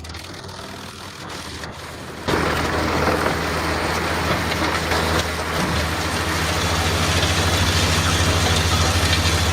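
A large industrial wood chipper runs with a steady low engine hum. About two seconds in it bites into timber, and a loud, dense clatter of chipping sets in and carries on, with a fast even pulsing underneath.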